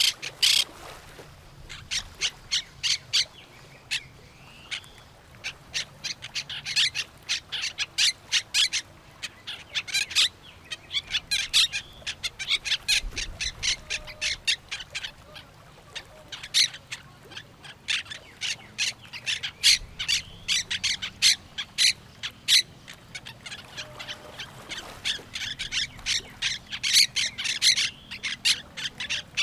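Parrots squawking in quick runs of short, harsh calls, several a second, with brief pauses between runs.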